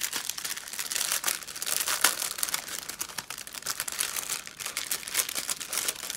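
Clear plastic bags of diamond painting drills crinkling as they are handled and unfolded, a steady crackle with many small clicks.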